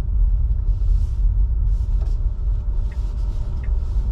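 Steady low rumble of a Tesla Model 3's tyres and running gear on a snow-covered road, with no engine note, and a couple of faint hissing swishes.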